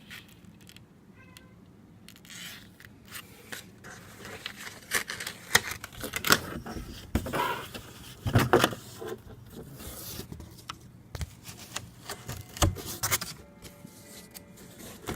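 Paper rustling and crackling as printed leaflets are handled and shuffled, with scattered light scrapes and clicks.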